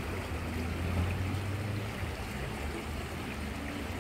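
Steady rush of a small river's flowing water, with a low rumble underneath.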